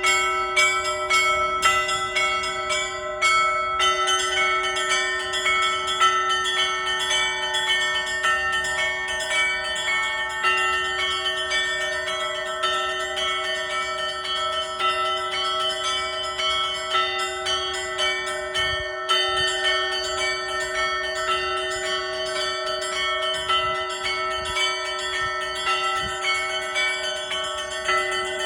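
Orthodox church bells rung together: several smaller bells struck in a quick repeating pattern while their tones ring on over a deeper bell that sounds throughout.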